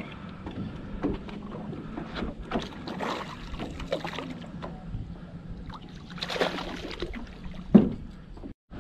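A hooked largemouth bass splashing and thrashing at the surface beside an aluminium boat as it is reeled in, irregular splashes over a low steady hum. A single sharp knock near the end.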